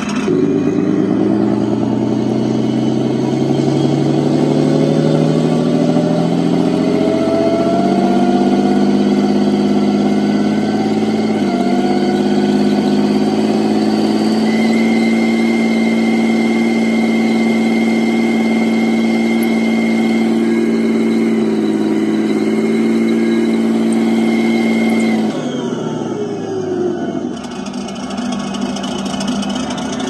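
Challenger 1 tank engine sound played by a Clark TK80 sound module through the speaker of a 1/16 RC tank. It rises in pitch as the throttle is opened, holds at a steady high rev, drops back about 25 seconds in, and starts climbing again near the end. A thin high whine from the electric drive motors and gearbox runs alongside while the engine sound is held high.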